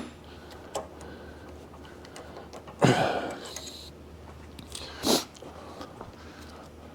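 A few separate metallic handling sounds while a tight drill chuck is being worked loose: a faint click near the start, a rattling scrape about three seconds in, and a short knock about five seconds in, over a low steady hum.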